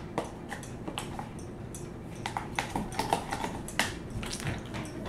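Wet slime being squeezed and handled in a clear plastic bowl, with an irregular run of small clicks and crackles.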